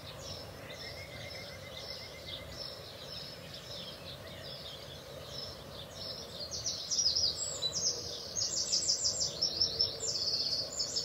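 Eurasian wren singing: fast runs of high, rapidly repeated notes, loud from about six seconds in, over softer chirping of other birds.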